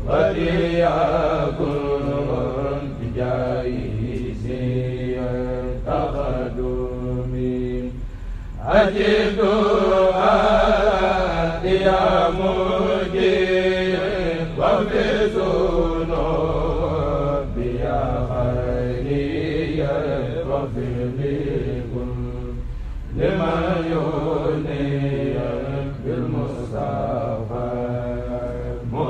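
Mouride kourel chanting a khassida in Arabic, a lead voice carrying long melismatic lines into a microphone, with short breaks about 8 and 23 seconds in.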